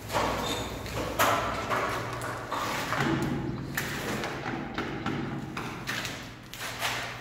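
Paint roller on an extension pole being worked over a wall: a series of rasping, swishing roller strokes about once a second, over a low steady hum.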